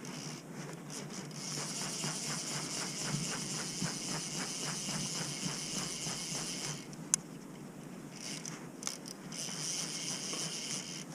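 Fly reel's click-and-pawl ratchet buzzing as line runs through it while a hooked trout is played, in two spells with a short gap and a single sharp click between them.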